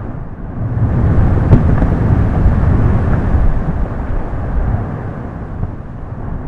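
Deep, loud rumbling of an erupting volcano. It swells over the first second, gives a sharp crack about a second and a half in, then slowly eases off.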